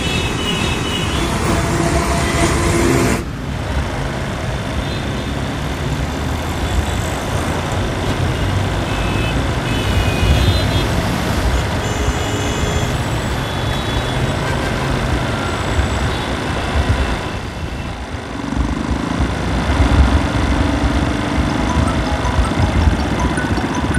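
Road traffic: the engines of passing vehicles running steadily, with a few short high-pitched beeps around the middle. Near the end a motorbike or scooter engine comes close and grows louder.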